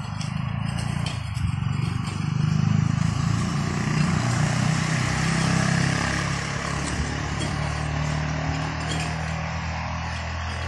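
Electric motors of a mobile double-vibrator concrete block-making machine running with a steady low hum, loudest a few seconds in and slowly fading.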